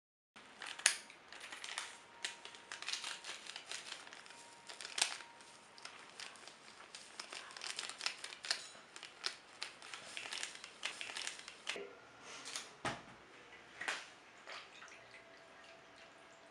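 Plastic drink-powder sachet crinkling as it is handled and snipped open with scissors, a run of scattered crackles and rustles.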